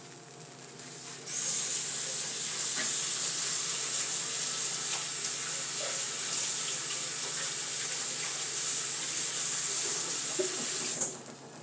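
Kitchen tap running as a cooking utensil is rinsed under it; the water comes on about a second in, runs steadily and shuts off near the end.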